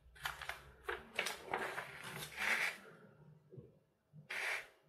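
Glossy paper pages of an instruction booklet rustling as they are turned: a long rustle over the first three seconds, then a short one near the end.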